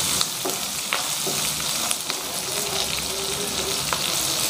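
Turkey berries, shallots, garlic and green chillies frying in sesame oil in a non-stick pan: a steady sizzle with scattered sharp pops of spattering oil, as a wooden spatula stirs them.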